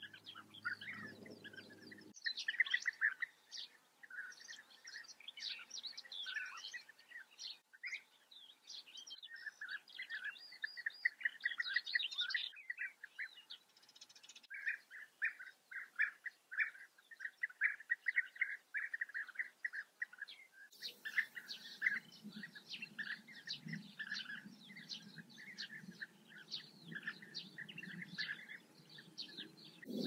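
European bee-eaters calling in a colony: many short calls repeated in quick succession and overlapping. A low background rumble runs underneath at the very start and again through the last third.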